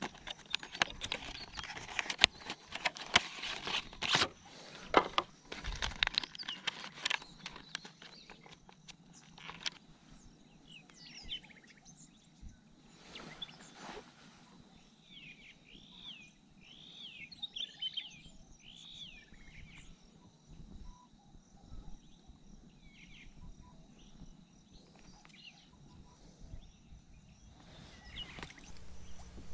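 Clear plastic lure packaging crackling and clicking as it is handled and opened, for roughly the first ten seconds. After that it is quieter, and birds chirp in short repeated calls.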